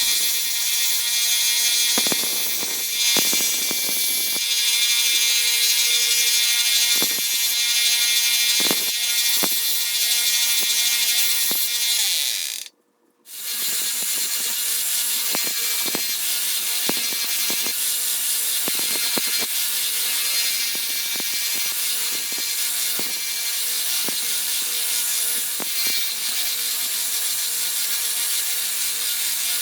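Belt sander running with a steady hum while rusty, pitted steel pliers are ground on the belt, with repeated short scrapes as the metal is pressed to the belt. The sound cuts off for a moment about halfway through and picks up again the same.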